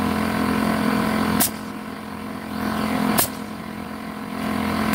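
Portable generator engine running steadily, a constant hum. Two sharp clicks cut in, about a second and a half in and again about three seconds in, each followed by a drop in loudness.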